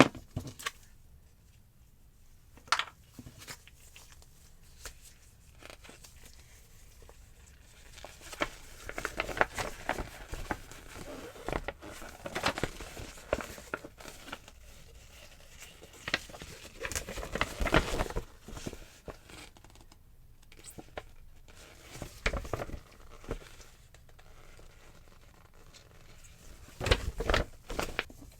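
Packaging being handled and opened by hand: irregular rustling, crinkling and tearing with scattered clicks, in bursts separated by quiet pauses.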